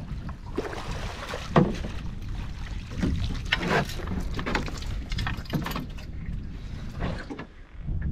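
Water slapping and lapping against the hull of a small fibreglass Orkney Longliner fishing boat, in irregular splashes roughly a second apart, over a steady low rumble.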